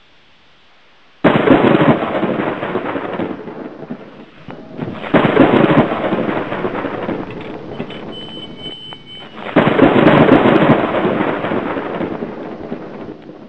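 Thunder: three loud claps about four seconds apart, each starting suddenly and dying away over a few seconds, with a lower hiss between them.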